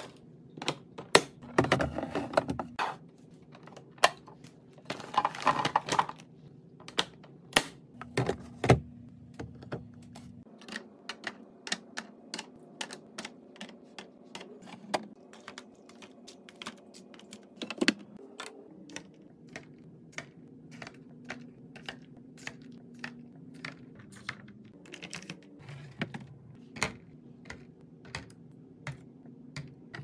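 Restocking sounds: in the first few seconds, a few noisy crunching rustles from tortilla chips in a clear plastic canister, then a long run of light, sharp clicks and taps as plastic-packed snacks, yogurt cups and bottles are set into clear plastic organiser bins.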